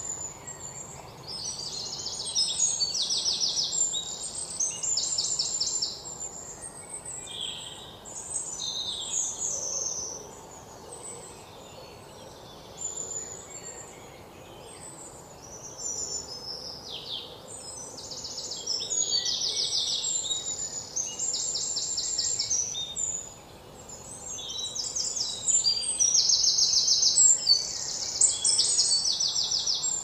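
Forest ambience with several birds singing: high chirps and fast trills that come and go, over a faint steady background noise.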